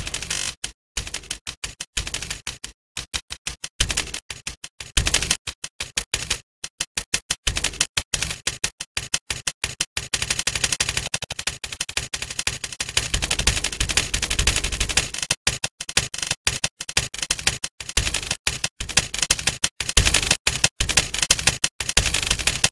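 Typewriter typing quickly: a dense, uneven run of key strikes with brief pauses between bursts.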